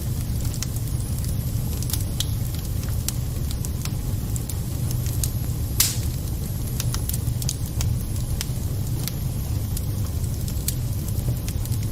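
Wood burning in a fireplace: a steady low rumble of flames with scattered crackles and pops from the burning wood and embers, one louder pop about six seconds in.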